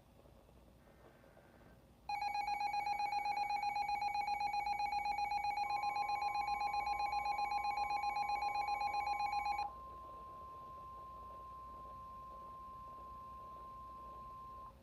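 Emergency alert tones. A loud, rapidly pulsing alert tone with many overtones sounds for about seven and a half seconds. Partway through, a steady single-pitch NOAA Weather Radio warning alarm tone joins it and carries on alone, quieter, until it cuts off abruptly. The alarm tone signals that a warning broadcast follows.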